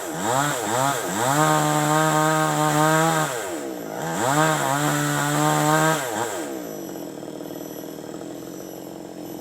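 Two-stroke chainsaw engine revving high, its pitch dipping briefly several times and rising again. About six and a half seconds in it drops to a lower, quieter run.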